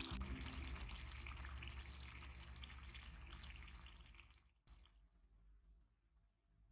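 Ajillo simmering in oil in a mess tin, with a soft bubbling hiss and many small pops. It fades away and drops to near silence about four and a half seconds in.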